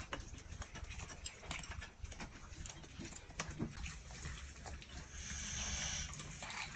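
Several cats eating dry kibble from bowls: a steady run of small, irregular crunches and clicks. About five seconds in there is a soft hissing rustle that lasts about a second.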